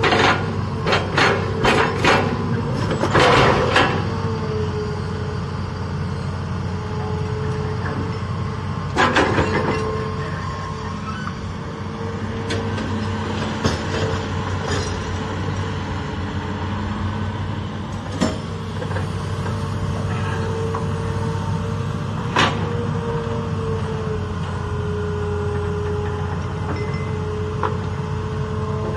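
Hitachi hydraulic excavator working: its diesel engine runs steadily while the hydraulic pump whine rises and falls as the boom and bucket move. A rapid series of metallic clanks comes in the first few seconds and again at about nine seconds, with a few single knocks later, as the bucket digs into hard, rocky ground.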